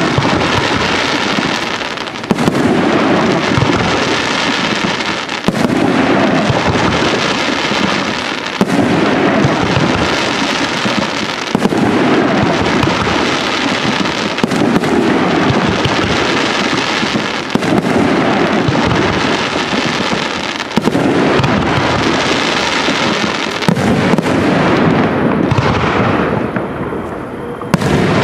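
Aerial fireworks shells bursting in a dense, continuous barrage of bangs. A fresh volley starts about every three seconds.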